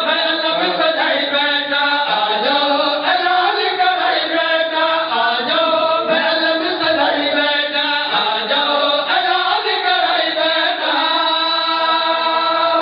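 A man chanting a devotional verse in a drawn-out, melodic recitation into a microphone, his voice continuous and sliding between long held notes.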